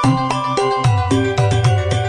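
Instrumental background music: quick short pitched notes over a bass line that comes in about a second in.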